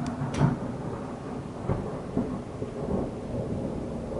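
Close thunder: two sharp cracks right at the start, the second the loudest, then a low rumble with further crackles, over the steady hiss of heavy rain.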